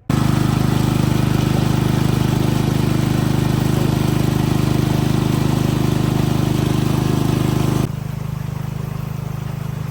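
An engine running steadily at a constant speed with an even pulse. It drops in level about eight seconds in and keeps running.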